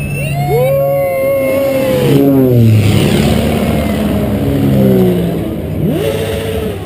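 Propeller aircraft engines flying past overhead, their pitch repeatedly rising and then falling as the planes pass and manoeuvre.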